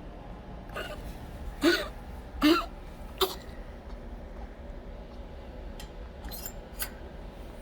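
A dog coughing: four short coughs in about three seconds, the middle two loudest, then two fainter ones near the end. The cough comes from fluid building up around the lungs in congestive heart failure.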